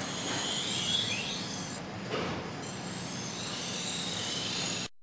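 Steel kitchen knife blade held against a rotating grinding wheel, a steady scraping hiss of the edge being ground, which cuts off abruptly near the end.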